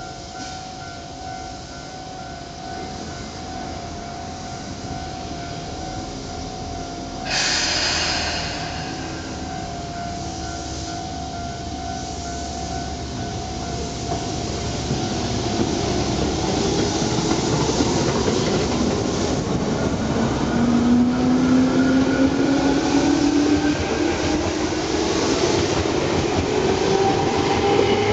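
Tobu 10000 series electric train pulling out of a station. A sudden loud hiss comes about seven seconds in, then the field-chopper-controlled traction motors whine, rising in pitch and growing louder as the train picks up speed.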